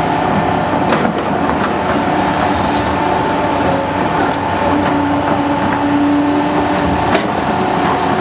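A passing train: a steady loud rumble of rail cars with held tones and a few sharp clicks.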